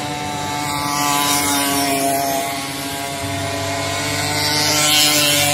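Several racing moped engines running at high revs around the track, their whines overlapping at different pitches. The sound swells as machines pass, about a second in and again near the end.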